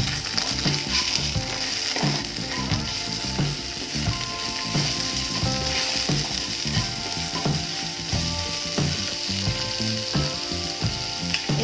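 Chopped onion, ginger, garlic and spice paste sizzling in hot oil in a non-stick kadai, stirred with a wooden spatula that scrapes across the pan in a steady rhythm of strokes, a little more than one a second.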